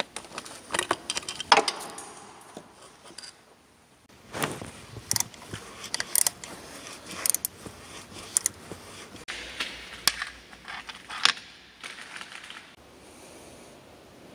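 Irregular metallic clicks and clinks of a socket wrench on an extension working the E10 Torx bolts that hold an EGR valve, the tool knocking against the metal valve body. The clicking stops near the end.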